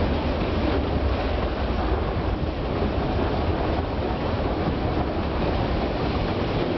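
Passenger train in motion heard from an open coach window: a steady rumble of wheels on the rails, mixed with wind rushing over the microphone.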